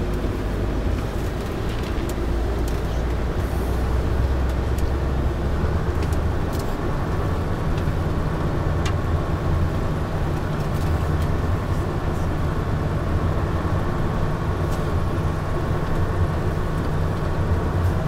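Bus engine running steadily under load, heard from inside the cab, as the bus fords a river and pulls out of it; the engine note rises about six seconds in.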